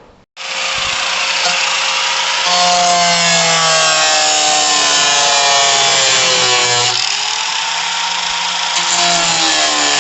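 Power tool, an angle grinder, grinding on rusted car body metal, its pitch sagging and recovering as it is pressed into the work.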